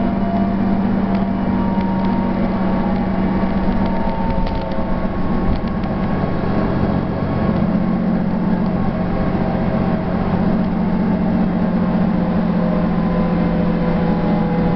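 Inside a Nova Bus LFS articulated city bus cruising at highway speed: a steady engine and drivetrain drone with road noise, with faint clicks and rattles from the cabin.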